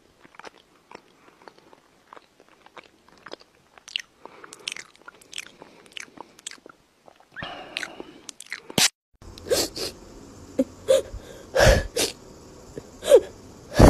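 A dog chewing and licking noisily at its paws: a run of small, quick clicks and crunches. About nine seconds in, louder, sharper knocks and short squeaky sounds take over.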